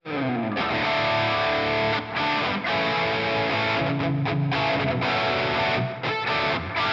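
Electric guitar played through the distortion of a Valeton GP200 multi-effects unit: heavily distorted chords ring out, with a few short breaks between phrases.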